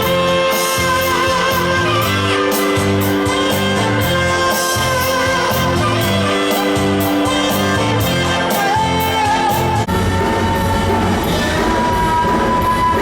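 Rock music with guitar and a steady beat. It changes abruptly to a different passage about ten seconds in.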